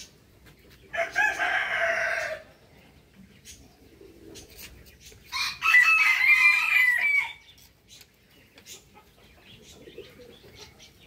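Rooster crowing twice, each crow about a second and a half long, the second louder and higher.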